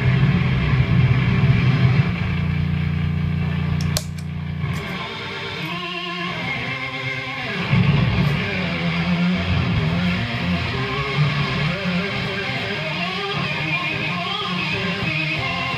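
Gibson Les Paul electric guitar tuned to drop C, played through a Schenkenstein Fugly Space fuzz pedal. A low fuzzed chord is held for about four seconds and is cut off by a click. After a brief thinner passage, a run of notes follows that wavers in pitch.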